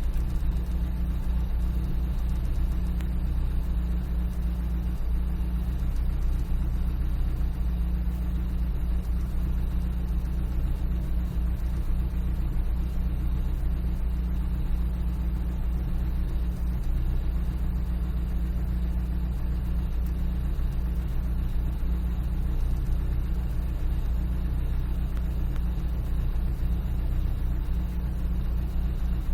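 Toyota 22R-TE turbocharged four-cylinder engine idling roughly, a steady low rumble with small uneven flickers in level.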